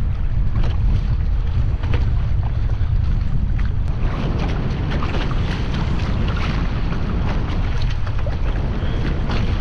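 Strong wind buffeting the microphone in a heavy, steady low rumble, with water splashing and slapping against a kayak's hull as it moves through choppy water.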